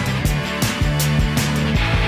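Background music: an upbeat rock track with electric guitar, bass and a steady drum beat.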